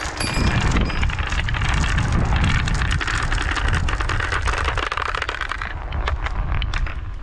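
Many marbles rolling and clattering down wooden tracks: a dense run of clicks over a low rolling rumble that thins to scattered clicks about six seconds in. A few xylophone notes ring briefly at the start.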